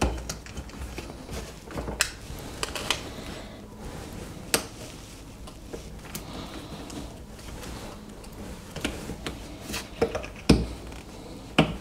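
A knife blade scraping and prying at the broken black plastic casing of a 9 V alkaline battery and its packed filling, with irregular sharp clicks and cracks as bits chip off; the loudest cracks come near the end.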